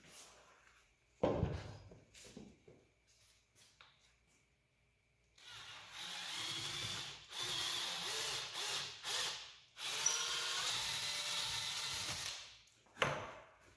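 Cordless drill running a 1/4-inch bit through a Kydex cheek riser in three bursts, starting about five and a half seconds in with two short pauses. A sharp thump comes about a second in.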